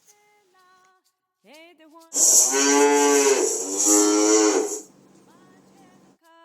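Cow mooing: two long moos in quick succession, with a shorter rising call just before them.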